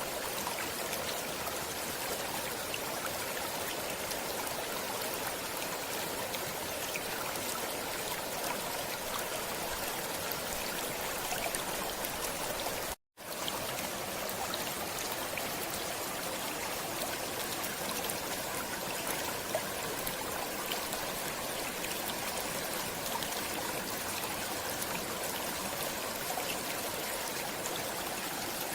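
Stream water flowing steadily, an even rushing and trickling. About halfway through the sound cuts out completely for a split second, then resumes.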